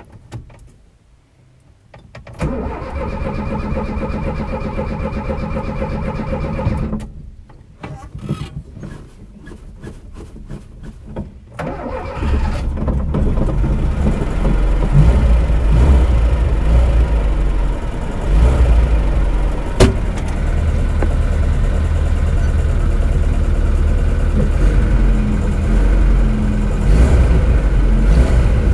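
VAZ-2121 Niva's four-cylinder petrol engine being cranked on the starter, with a stretch of stuttering cranking before it catches about twelve seconds in. It then runs steadily at idle.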